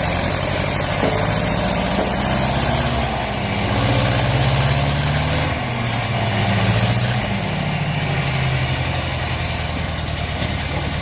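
1970s John Deere 400 backhoe loader's engine running steadily, its pitch stepping up and down a few times as the engine speed changes.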